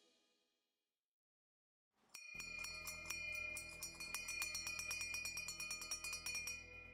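Small brass ship's bell, 12 cm across, rung rapidly with its clapper: a quick run of clanging strikes over a steady high ringing tone, starting about two seconds in and dying away near the end.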